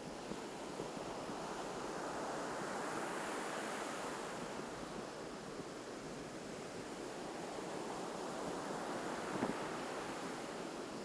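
Ocean surf breaking and washing on a beach, swelling twice as waves roll in, with a little wind noise on the microphone.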